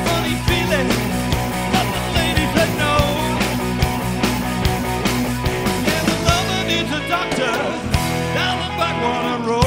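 Live rock band playing an instrumental passage: electric guitars with bending lead notes over drums, bass and keyboards.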